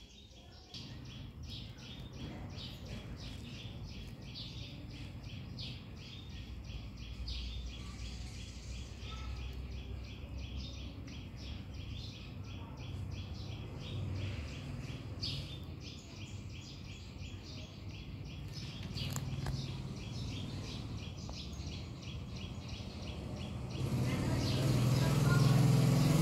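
Steady, rapid high-pitched chirping repeating a few times a second over a low hum. Near the end a low motor comes in and grows loud.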